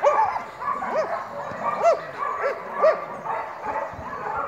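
Belgian Malinois barking at a decoy in protection training: a fast run of short, sharp barks, roughly two a second, easing off near the end.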